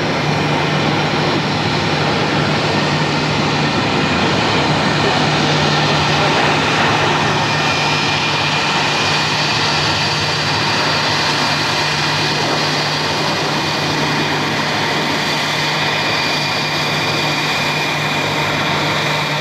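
Boeing 737-300's CFM56 turbofan engines at takeoff thrust: a steady jet roar with a high fan whine, as the airliner rolls, lifts off and climbs away.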